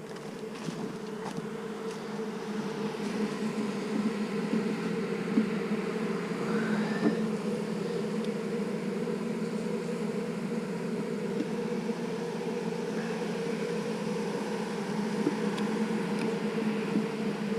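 Honeybees in an opened two-frame nuc humming steadily, swelling louder over the first few seconds. The colony is nervous and stirred up by the hive being worked.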